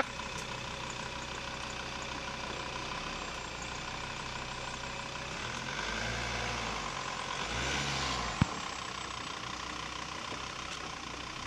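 Jeep Grand Cherokee engine running at low revs as the Jeep manoeuvres slowly off-road. The engine swells twice under load past the middle, then there is one sharp knock.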